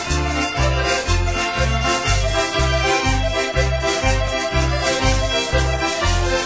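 Background music: a lively tune with a steady bass line that alternates between two notes, about two a second.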